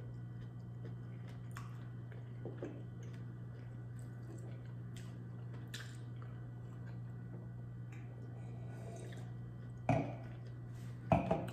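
Quiet eating and drinking sounds at a table: soft chewing, sipping and small clicks of handling food, over a steady low hum. Two louder clatters come near the end.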